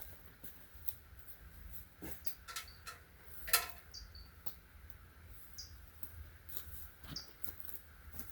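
Short, high, falling chirps of a small bird, repeated about once a second, among scattered clicks and knocks of handling, the loudest knock about three and a half seconds in.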